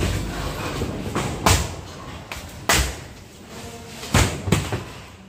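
Demolition bar striking the metal frame and panels of a temporary plastic-walled structure being torn down: about four sharp bangs, the last two close together.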